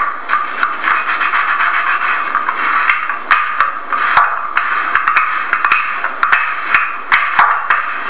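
Rolling pin working homemade pasta dough on a wooden table: a steady scraping rustle broken by many irregular sharp knocks.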